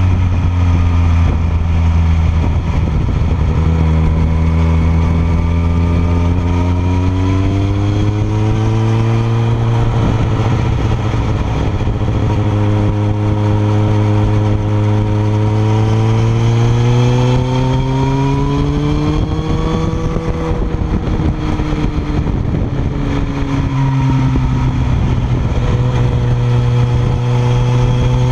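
Kawasaki ZX-14R's inline-four engine through a Yoshimura R77 exhaust, heard close to the silencer under way. The note climbs slowly in pitch several times and falls back between climbs, with a steady rush of wind and road noise underneath.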